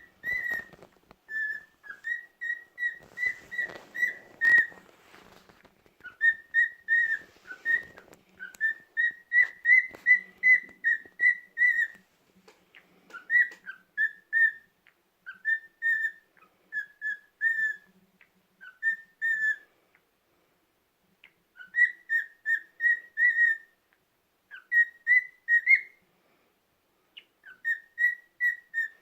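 Cockatiel whistling its song: long runs of short, quick whistled notes in phrases, breaking off a few times. Faint rustling and a few clicks sound under the whistling during the first several seconds.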